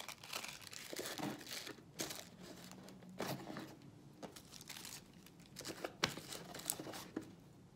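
Tissue paper crinkling as it is crumpled and pressed by hand, a string of uneven crackles.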